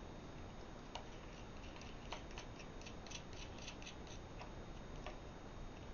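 Faint, irregular small metallic clicks and ticks of a 1/4-20 nut and flat washer being turned by hand onto a carriage bolt, over a low steady hiss.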